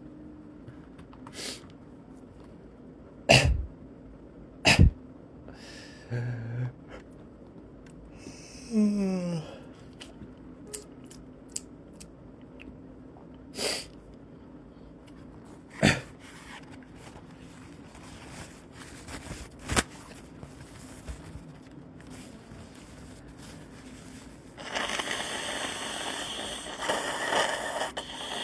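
A person sneezing and coughing: about half a dozen short, sharp bursts spaced several seconds apart, the loudest two close together a few seconds in. One drawn-out vocal sound falls in pitch, and near the end a longer stretch of steady noise sets in.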